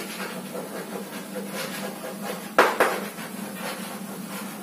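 Chalk writing on a blackboard: faint scratching strokes, with two sharp taps of the chalk against the board about two and a half seconds in, over a steady low hum.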